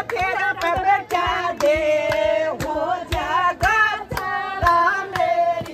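Women singing a devotional bhajan with hand-clapping in time, about two to three claps a second.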